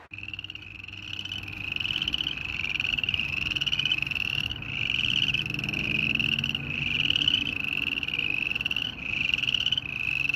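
A chorus of frogs giving their spring mating calls: overlapping pulsed trills, each under a second long and rising slightly in pitch, repeated one after another.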